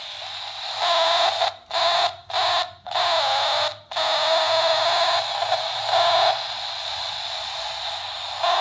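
Warbling electronic sound effect that cuts out briefly four times in the first four seconds, then runs on steadily.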